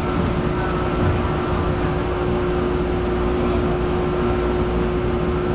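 Cabin noise inside a Taipei Metro Wenhu Line Matra VAL 256 rubber-tyred train running at speed: a steady rumble with a steady humming tone held over it.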